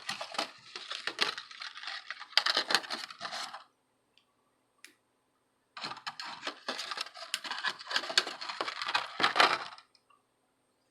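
Dense, irregular crackling and clicking in two stretches of about four seconds each, separated by a silent gap: Chip Quik low-melt removal alloy being melted with a soldering iron onto flux-covered pins, the flux sizzling and spitting.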